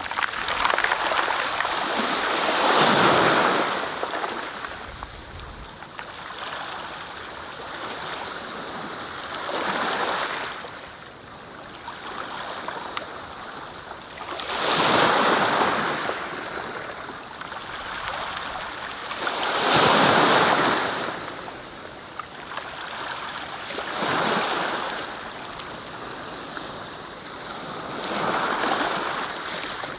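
Waves breaking and washing in, rising and falling in rhythmic surges about every five seconds.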